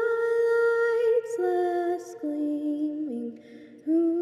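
Slow music sung in two-part harmony: long held notes that step to new pitches about once a second, with a short break near the end before the next note.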